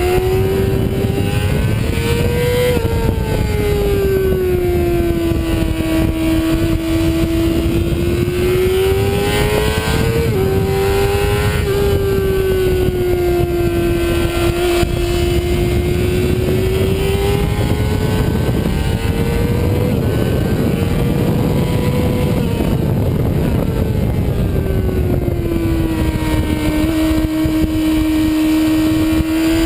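Sport bike engine running hard at track speed, heard from an onboard camera with wind rush on the microphone. The engine note rises and falls several times as the rider accelerates and rolls off through corners, with a sudden drop in pitch about ten seconds in.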